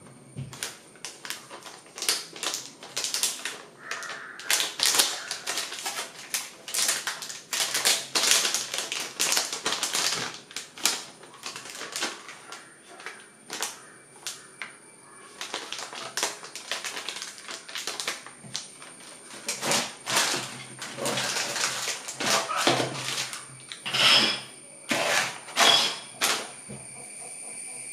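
Plastic packaging crinkling and rustling as hands handle and shuffle small bagged switches and socket modules, with irregular sharp crackles and clicks, some sharper ones near the end.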